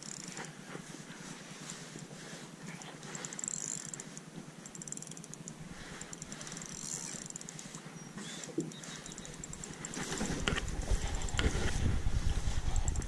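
A spinning reel being cranked as a small hooked bass is brought in to a small aluminium boat. About ten seconds in, louder knocks and thumps start.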